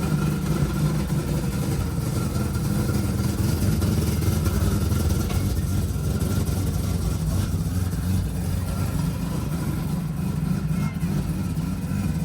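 Car engines running steadily at low revs, a continuous low rumble without clear revving.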